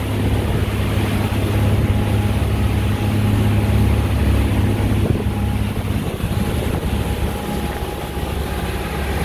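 Motor cruiser's engines running steadily underway, a low drone with wind and water rushing past the hull. A faint steady whine joins about six seconds in.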